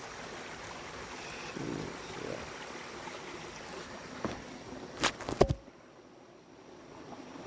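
Steady rush of flowing stream water. About four seconds in come three or four sharp knocks, the last the loudest, and then the water sound drops much quieter.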